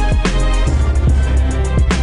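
Background music with deep bass and a drum beat, with a sharp drum hit shortly after the start and another near the end.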